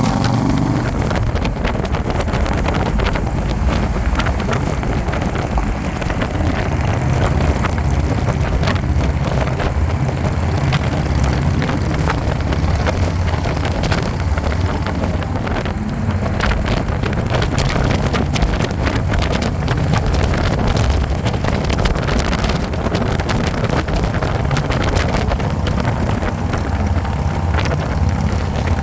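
Harley-Davidson motorcycle riding at speed: a steady low engine drone under heavy wind rushing on the microphone.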